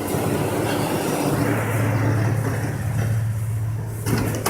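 Dodge Viper RT/10's 8.0-litre V10 cranking and catching on a cold start, running steadily for a couple of seconds, then dying away near the end: the engine fires but cuts itself off. A sharp click comes just before the end.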